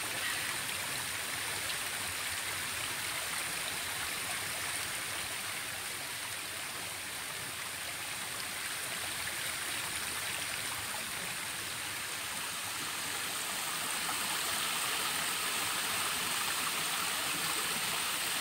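Shallow rocky stream trickling over boulders and into pools, a steady rushing hiss that grows somewhat louder over the last few seconds.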